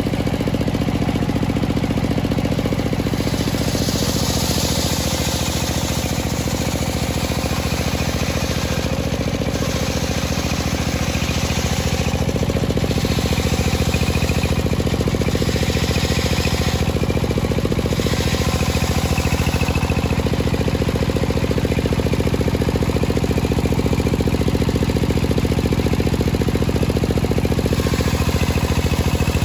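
Large table-mounted circular saw ripping a teak log lengthwise. The machine hums steadily underneath, and the hiss of the blade cutting the wood swells and fades several times as the log is fed through.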